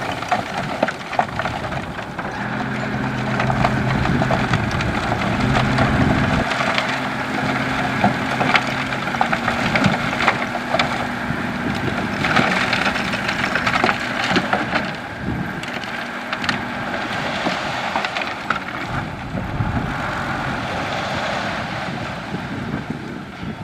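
Heavy construction machinery working gravel: a steady engine hum under a continuous crunching and clattering of stones with many sharp cracks.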